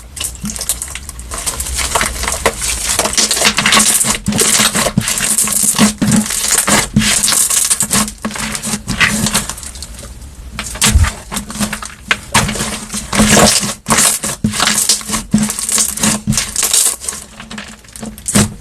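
Slime being squished and worked by hand, with dense crackling and many quick clicks and pops that swell and ease in stretches.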